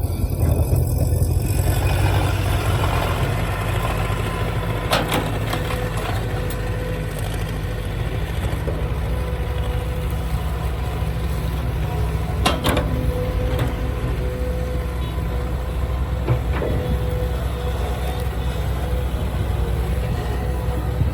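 Heavy diesel engine of construction machinery running steadily at a low, idle-like pace, with a few sharp metallic knocks about five seconds in, twice around twelve seconds, and once near seventeen seconds.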